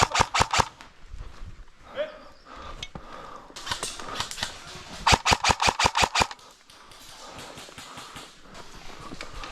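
Airsoft guns firing in rapid semi- or full-auto strings of sharp clicking shots: a short burst right at the start and a longer burst of about ten shots, roughly eight a second, around five to six seconds in.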